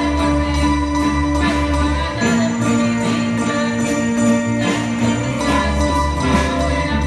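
Music played on two electronic keyboards: long held low notes and chords over a steady beat.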